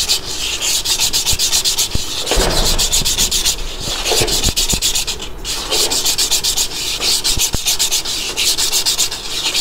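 Fine emery paper rubbed by hand in quick back-and-forth strokes around the inside of a motorcycle's brake drum, with a couple of short breaks. The rubbing roughens the braking surface that has been polished smooth by braking, so the brake shoes get grip again.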